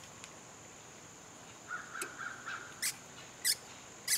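A hand-operated vacuum brake bleeder pump worked in short strokes, each a brief hiss, about two-thirds of a second apart near the end. It is drawing brake fluid and air bubbles out through the front caliper's bleeder screw. Shortly before the strokes, a few rasping calls sound in the background.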